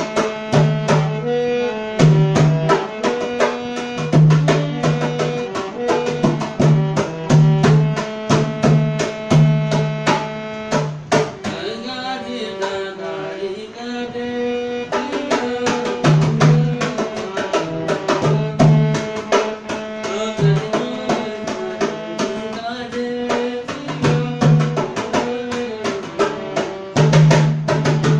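Harmonium playing a Garhwali folk tune in held reedy notes, over a dholak drummed in a steady rhythm, its bass head thudding at regular intervals.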